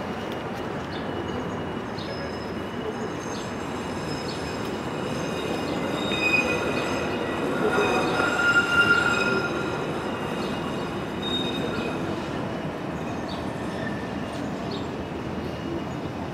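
Alstom Citadis 402 tram pulling away from a stop and running off into the distance, its running noise fading as it goes. Thin, high wheel squeal on the rails swells to its loudest around the middle, then dies away.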